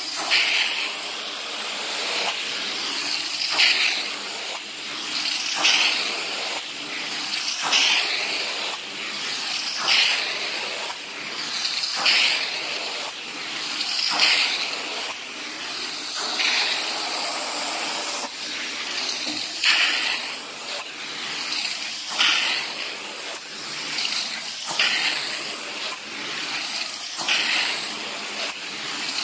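Carpet-cleaning extraction wand pulling air and water through the carpet: a steady loud hiss that surges about every two seconds as the wand is worked in strokes.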